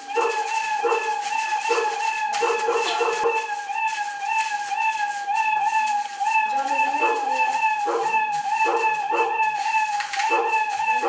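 Electronic sound from a Scratch computer game triggered through a Makey Makey board: a loud, slightly wavering high tone held throughout, with short lower notes repeating under it about every 0.7 seconds.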